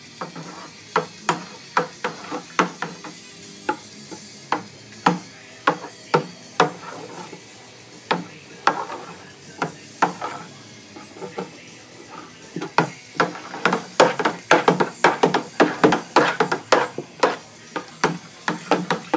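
A spoon stirring wort in a plastic fermenting barrel, knocking against the barrel's neck as the sprinkled yeast is mixed in. The knocks come irregularly at first and grow quicker, about three a second, in the last several seconds.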